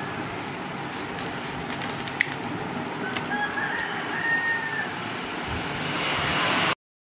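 A rooster crowing once, a held call of about a second and a half, over steady background noise, with a single sharp click about two seconds in. The sound cuts off abruptly near the end.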